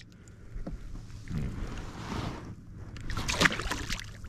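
A small halibut splashing into the water beside a canoe as it is released, the sharpest splash about three seconds in, with rustling and light knocks of handling in the boat.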